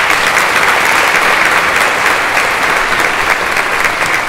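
Audience applauding: many people clapping in a loud, steady, even patter.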